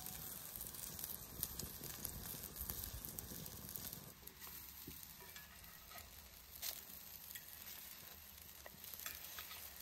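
Potato patties frying in oil in a cast-iron pan: a steady sizzle with small pops. A few sharp knocks near the end as a wooden spatula turns the patties.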